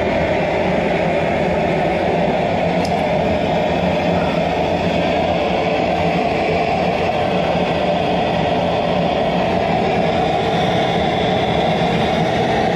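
Gas torch burner of a firebrick forge running, a constant, even rushing noise over a low rumble.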